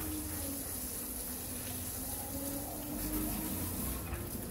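Garden hose spraying a steady stream of water onto wet paving tiles.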